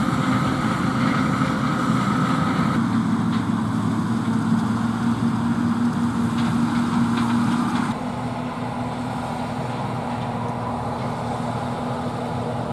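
John Deere 9570 STS combine's diesel engine and threshing gear running steadily while harvesting corn, a continuous drone with a steady hum. About eight seconds in it drops suddenly to a quieter, more distant drone.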